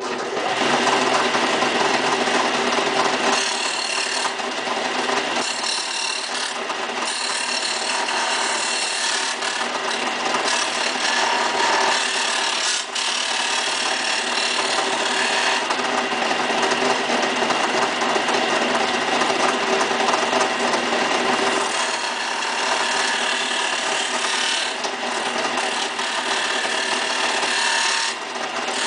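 Craftsman belt-and-disc sander switched on and running, its motor and abrasive giving a steady grinding whir as a piece of Lexan (polycarbonate) is pressed against it to round the corners. The grinding grows and fades every few seconds as the plastic is worked against the abrasive.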